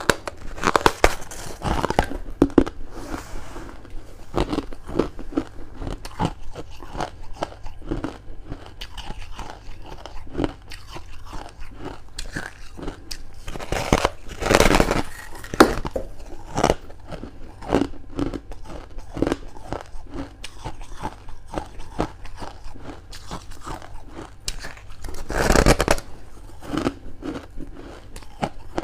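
Close-miked biting and chewing of a chunk of freezer frost, a dense run of crisp crunches. There are louder, longer bites about halfway through and again near the end.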